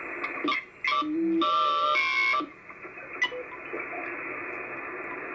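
HF amateur radio transceiver receiving on the 17-meter band: a steady hiss of band noise from its speaker. Between about one and two and a half seconds in, loud steady whistles and beep-like tones change pitch as the tuning knob is turned across signals, with a few short clicks.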